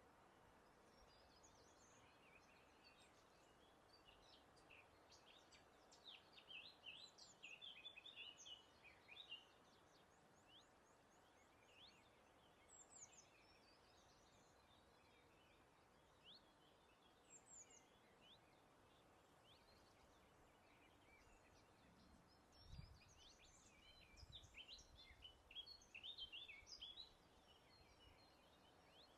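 Faint songbirds singing in bursts of high chirps and trills over a steady background hiss of breeze. The busiest spells come about a fifth of the way in and again near the end, with single calls between. Two soft low thuds come just before the final burst.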